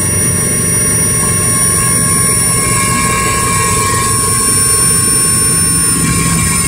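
Helicopter cabin noise on approach to landing: a steady, loud rotor and engine drone with several high, steady turbine whine tones over it.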